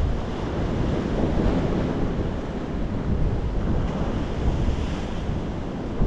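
Sea surf washing over rocks and up a sandy beach, a steady rushing wash with no single break standing out. Wind buffets the microphone, adding a low rumble.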